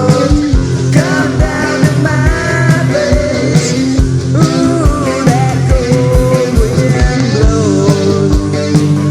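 Loud rock music: a steady drum beat, electric guitars and a melodic sung line.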